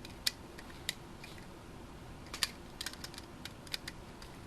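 Scattered light clicks and taps, irregular and a few at a time, from small tools and hard parts being handled on a workbench.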